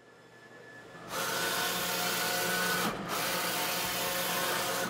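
Roland wide-format printer running: a steady mechanical whirr with steady tones in it, starting about a second in. It breaks off briefly about three seconds in, then carries on.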